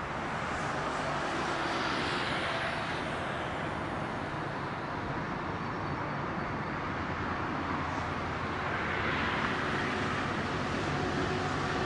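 V/Line N class diesel-electric locomotive running under power as it approaches hauling its carriages: a steady engine drone with a low hum, slowly growing louder toward the end.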